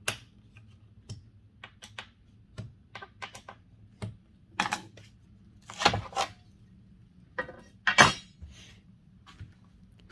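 Scattered light clicks and taps as a TSO GRC-12 guide rail connector is tightened into aluminium track saw guide rails, with a few louder metallic scrapes about halfway through and again near the end.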